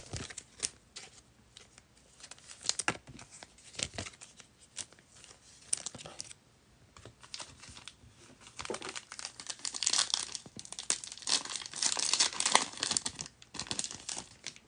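Foil wrapper of a football trading-card pack crinkling as it is handled, then torn open: scattered crinkles and clicks at first, then a dense stretch of crinkling and tearing in the second half.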